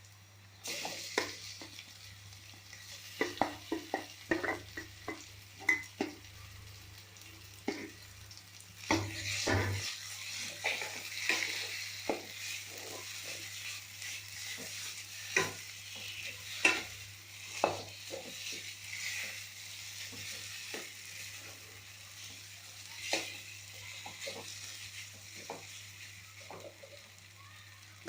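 Food sizzling in hot oil in a pan while a spatula stirs it, with repeated clicks and scrapes of the spatula against the pan. The sizzle starts about a second in.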